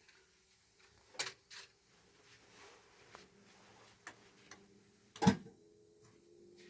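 Scattered light knocks and clicks of household handling, a few seconds apart, with one sharper knock about five seconds in.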